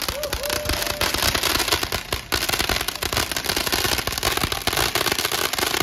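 Ground fireworks going off in a continuous, dense crackle of rapid pops.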